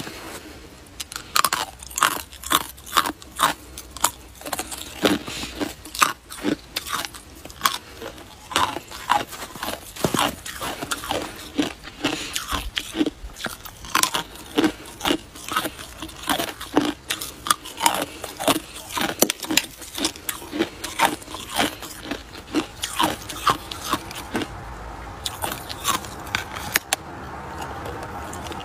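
An icicle being bitten and chewed: hard ice cracking and crunching between the teeth in a dense run of sharp, crisp crunches, several a second.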